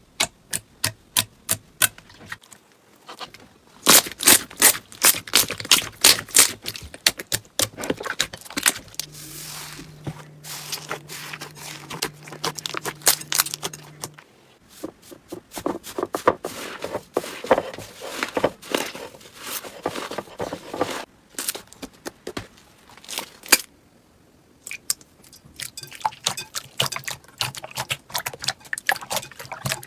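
Slime being worked by hand, giving quick runs of sharp pops and crackles, several a second, with short pauses between clips.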